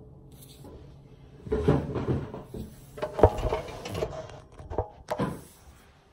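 Close handling noise from a phone being adjusted on a table: rustling and a few sharp knocks, the loudest a little over three seconds in.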